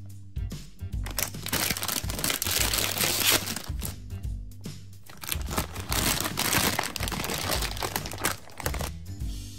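Plastic gumball bag crinkling and rustling as it is handled, torn open and tipped, in two long spells, over steady background music.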